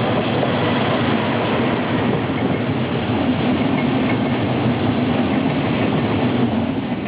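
Train passing close by, a loud steady rail rumble that cuts off abruptly at the end.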